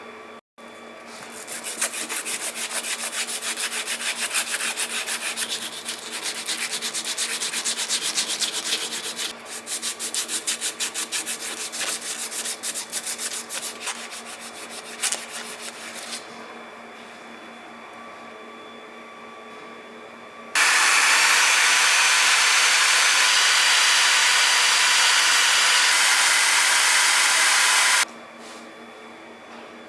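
Hand sanding in rapid back-and-forth strokes for about fifteen seconds, then stopping. Later comes a steady, loud hiss for about seven seconds that starts and cuts off suddenly.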